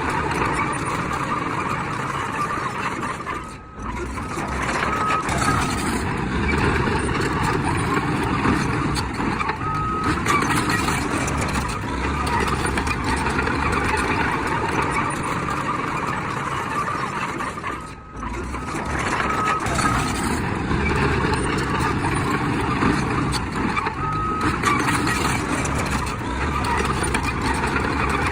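Heavy diesel earthmoving machinery, a bulldozer, running steadily, with a few short high beeps scattered through it. The sound drops out briefly twice.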